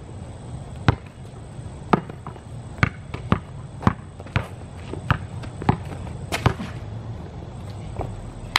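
Basketball dribbled on an asphalt court, sharp single bounces coming about every half second to a second at an uneven pace.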